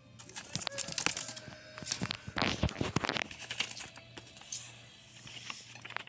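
Paper cutouts rustling and crinkling as they are handled close to the microphone, with scattered clicks and rubbing. The loudest rustle comes about two and a half seconds in.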